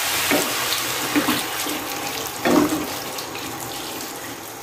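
Water pouring from a kettle into a wok of squash and chicken pieces, a steady splashing pour that slowly grows quieter, with one brief louder sound about halfway through.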